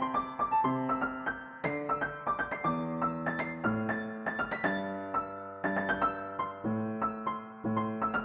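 Piano music: notes and chords struck about once a second, each ringing and fading.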